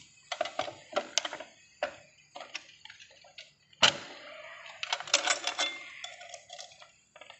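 Metal tools and scooter drive parts clinking and knocking irregularly, with short ringing after the hits, during work on an electric scooter's chain and sprocket. The loudest is a sharp metallic clank a little under four seconds in.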